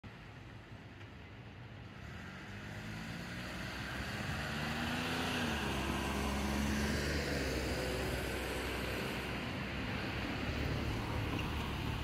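Cars passing on a road: engine and tyre noise builds over the first few seconds, with a brief rise in engine pitch about five seconds in, then stays at a steady low drone.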